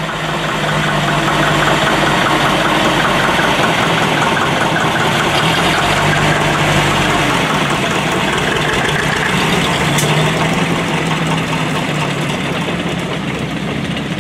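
Air-cooled engine of a Robur LO truck running steadily at low revs as the truck pulls away.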